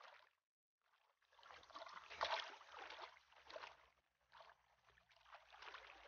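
Faint water splashing and trickling in a shallow rock pool, stirred by a Milos viper holding a freshly caught flycatcher in the water. It comes in two uneven spells, starting about a second and a half in.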